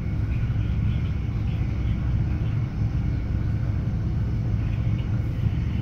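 Running noise of a regional express train at speed, heard inside the passenger car: a steady, even low rumble.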